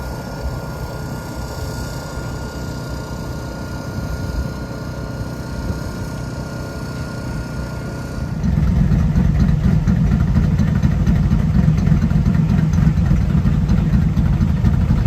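Car engines running with a steady low rumble. About eight seconds in, the rumble suddenly gets louder and deeper.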